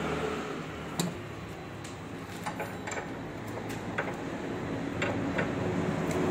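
Scattered metallic clinks and taps of hand tools and parts being worked on a car's front suspension and wheel hub, the sharpest about a second in, over a steady workshop hum.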